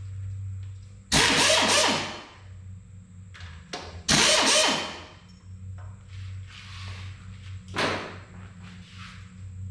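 A power tool run in two bursts of about a second each, with a shorter third burst near the end, over a steady low hum.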